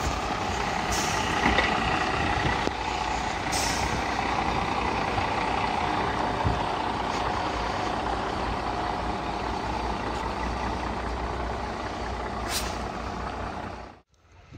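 MÁV Bzmot diesel railcars running past close by, engine rumble and wheels rolling on the rails, with a faint held whine and a few brief hisses. The sound cuts off sharply near the end.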